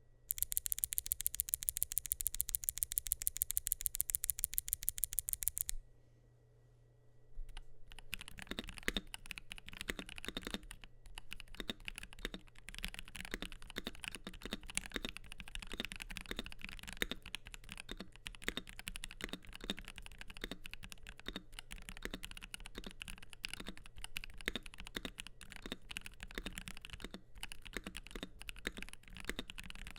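Typing on an ASUS ROG Azoth mechanical keyboard with lubed Gateron Oil King linear switches, aluminium plate and PBT keycaps. It opens with a fast, evenly spaced run of sharp, bright clicks for about six seconds, then after a short pause settles into ordinary irregular typing.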